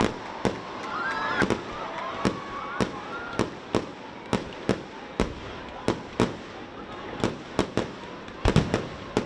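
Fireworks going off: sharp bangs at irregular intervals, roughly two a second, with a quick cluster of bangs near the end. Faint crowd voices are heard under the first few seconds.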